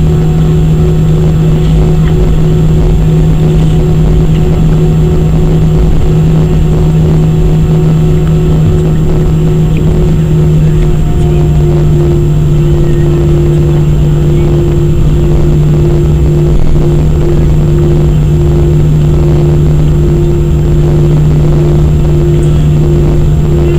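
Airbus A319-100 cabin noise while taxiing: the steady drone of the idling jet engines, a strong even hum with a fainter higher hum above it over a constant rumble.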